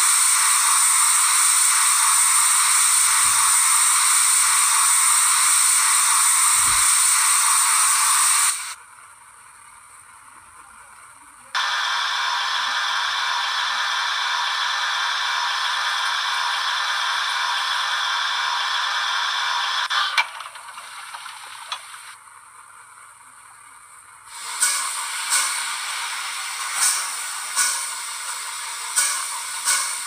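Steam locomotive sound effects from a model railway DCC sound decoder, played through its small speaker. First the safety valves blow off as a loud steady hiss for about nine seconds; after a short pause the injector runs as a hiss with a steady singing tone for about eight seconds. Near the end comes another hiss with a run of sharp clicks.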